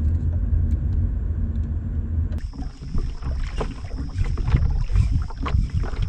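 Kayak out on the water: a steady low rumble of wind and water on the microphone. From about two seconds in come irregular splashes and knocks, with a thin high insect trill over them.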